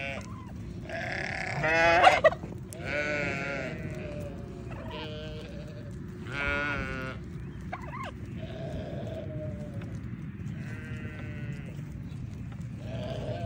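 A flock of sheep and goats bleating, one wavering call after another, about ten in all, with the loudest about two seconds in.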